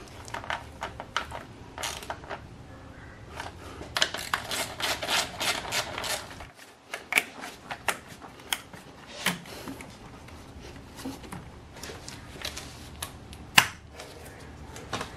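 Hands fitting the fuel rail and plastic injector wiring harness on an intake manifold: a run of small clicks and clatters, busiest about four to six seconds in, with one sharp click near the end.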